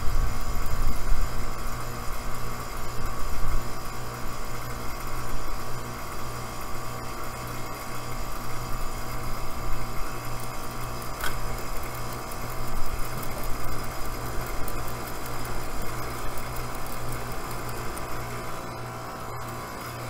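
Outdoor air-conditioner condensing unit running steadily during a pump-down, its compressor making a little noise as it pulls the suction side down into vacuum; the hum slowly gets quieter. A single sharp metallic click comes about eleven seconds in.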